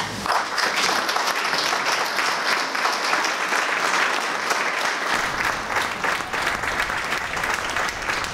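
An audience of a few dozen people applauding, the clapping swelling up at the start and then holding steady.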